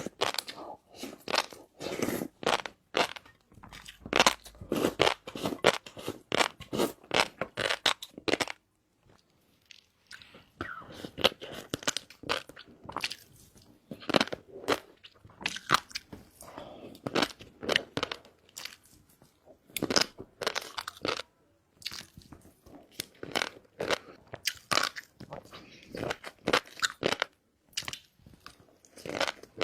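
Close-miked chewing of shrimp coated in fish roe: dense, irregular crunching and crackling of the mouthful. There is a short lull about eight and a half seconds in before the chewing resumes.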